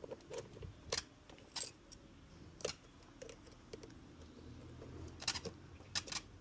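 Parts of a Kärcher K-series pressure washer being handled and fitted, with a handful of sharp clicks and knocks spaced irregularly.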